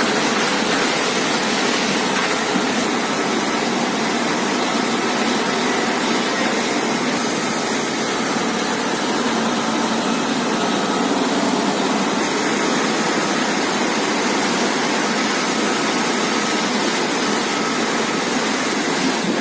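Borewell being flushed with compressed air from a borewell compressor: a loud, steady rush of air and water blowing out of the bore, with the compressor running.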